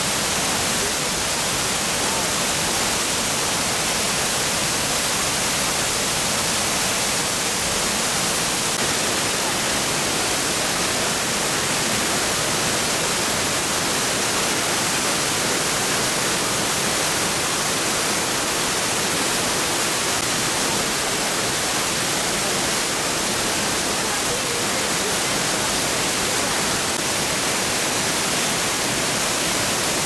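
Arvalem (Harvalem) waterfall, close to the plunging water: a steady, unbroken rush of falling water, more hiss than rumble.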